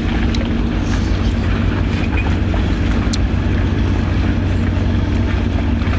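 A steady low mechanical drone with a constant hum, like a running engine, with a few short clicks over it.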